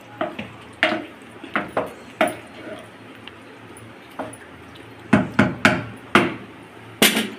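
Wooden spatula stirring a thick curry in an aluminium pressure cooker, knocking and scraping against the pot: a string of sharp knocks in the first couple of seconds, a pause, then a quicker run of knocks from about five seconds in, with a slightly longer stroke near the end.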